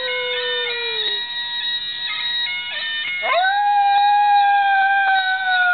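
A dog howling along to a bagpipe ringtone playing from a phone, over the steady bagpipe drones. One howl slides down in pitch and trails off about a second in; a second howl rises quickly about three seconds in and is held.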